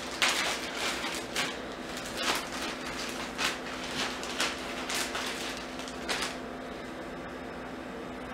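Clear plastic packaging bag rustling and crinkling in the hands as it is opened and handled, in a run of irregular crackles. The rustling stops about six seconds in, leaving a steady low hum.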